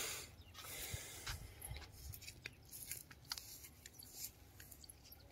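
Faint rustling and scraping of rolled grass turf being handled, with two short rustles in the first second and a half, then scattered small clicks.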